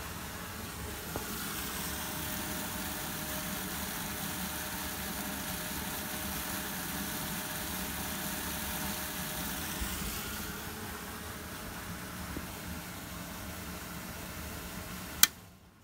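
Water gushing from the outlet pipe of a single-phase open-well submersible pump and splashing into a plastic drum, with a steady hum under it, as the pump runs on test from the newly wired panel board. A single sharp click near the end as the miniature circuit breaker is switched off.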